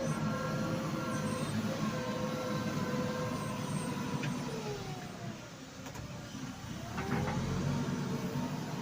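JCB 3DX backhoe loader's diesel engine running, its pitch falling and level dropping about halfway through, then revving back up about seven seconds in.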